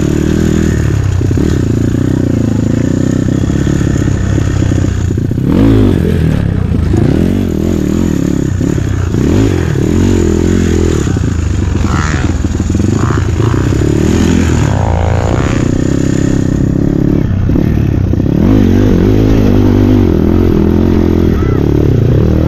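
Dirt bike engine heard up close from on board, revving up and down over and over as the bike races over a rough dirt track.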